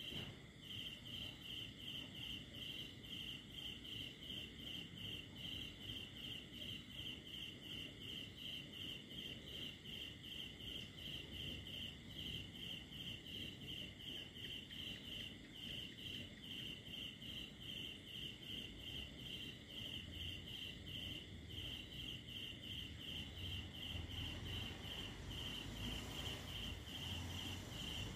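Crickets chirping in a steady, even pulse, roughly two to three chirps a second. A faint low rumble rises underneath in the last few seconds.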